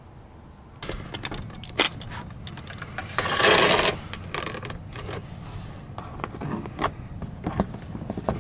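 Work under a car: scattered clicks, clatter and scraping of tools and parts being handled, with one louder scraping rush about three seconds in.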